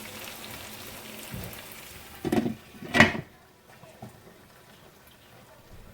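Chicken and spices sizzling in a pot over low heat, then two knocks of a lid being put on the pot about two and three seconds in, after which the sizzle is muffled and faint.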